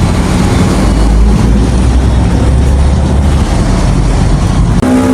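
Loud, steady low rumble of vehicle travel noise, with road and wind noise on the microphone; the deepest rumble eases about three and a half seconds in.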